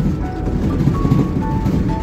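Background music: a simple melody of short held notes stepping up and down, over a dense low rumble.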